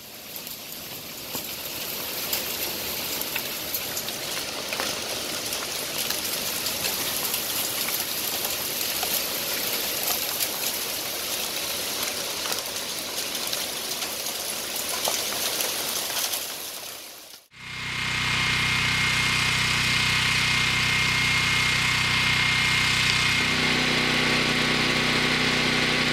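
Heavy rain falling steadily, then, after a sudden cut about two-thirds of the way in, a Westinghouse dual-fuel portable generator's engine running steadily on propane, with a thin high whine over it; its engine note changes slightly near the end.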